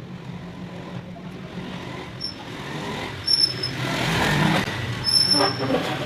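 Background road-traffic noise: a vehicle passing, swelling louder through the second half, over a steady low hum, with a few brief high squeaks.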